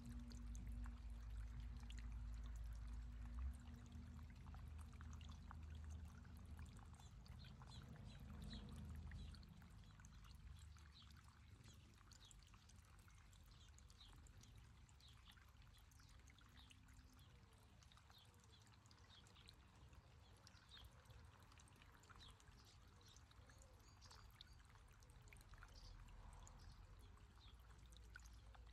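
Faint trickling and splashing of water from a small garden fountain. A low rumble underneath fades out about nine seconds in.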